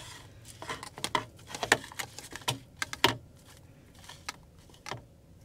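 Metal forks scraping and clinking against a ceramic bowl while shredding cooked rotisserie chicken: irregular clicks and short scrapes.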